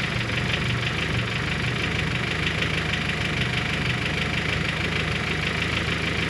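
Honda H22-based G23 four-cylinder engine at cold idle with a rapid, even ticking from the cylinder head over the steady engine note. New lost motion actuators have not cured it; the owner suspects the valve springs and retainers.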